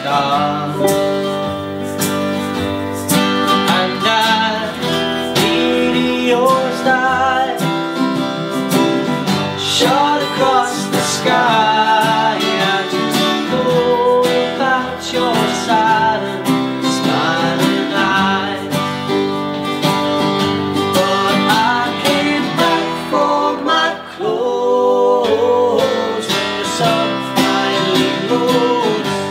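Unplugged acoustic band performance: an acoustic guitar strummed and plucked while a man sings.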